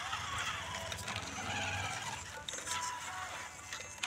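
Small electric motor and plastic gearbox of a toy RC rock crawler whirring steadily as it crawls over gravel under load, pulling a trailer carrying another RC car.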